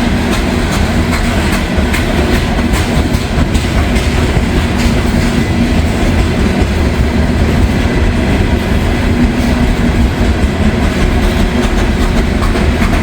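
Loaded CSX coal train of hopper cars rolling slowly past, a steady heavy rumble with the clickety-clack of wheels passing over rail joints.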